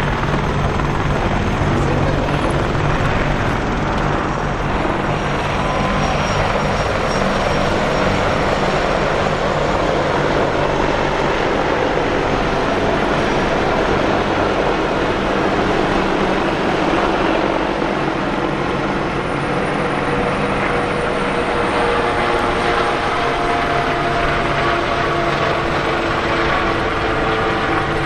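Boeing AH-64D Apache attack helicopters running, with twin turboshaft engines and rotors giving a loud, steady helicopter noise. Faint steady whining tones come in over the second half.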